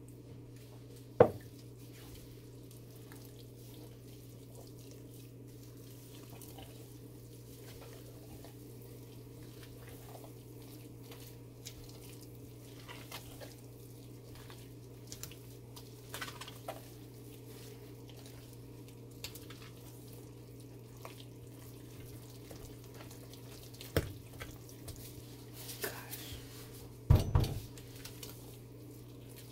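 Thick, cooked hot-process soap being stirred and folded with a silicone spatula in a stainless steel pot as liquid is mixed in: wet squelching and scraping. A sharp knock against the pot about a second in, another later, and a short cluster of louder knocks near the end, over a steady low hum.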